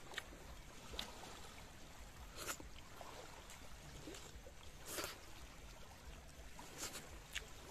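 Faint wash of small waves lapping at the shore, with a handful of short clinks and scrapes of spoons on metal plates scattered through it.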